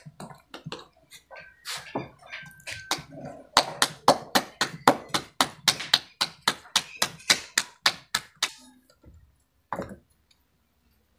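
A few clinks of steel utensils, then a fast, even run of hand slaps, about six a second, as roti dough is patted flat between the palms; the slapping stops about three seconds before the end.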